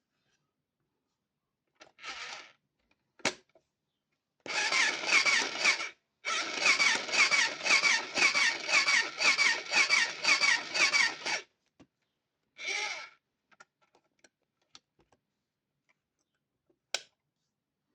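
Toy sewing machine running in short starts, then in a longer run of about seven seconds with one brief stop: a whirring small motor and a wavering squeal, pulsing about twice a second as the needle works. Clicks from handling the machine come before and after.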